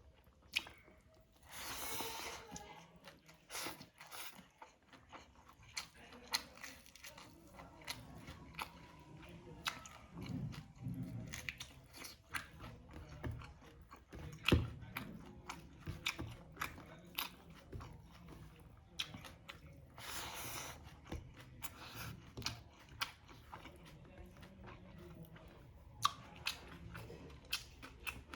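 A person eating close to the microphone, chewing and biting with crunches and many sharp wet mouth clicks. Two longer, hissy noises come about two seconds in and again about twenty seconds in.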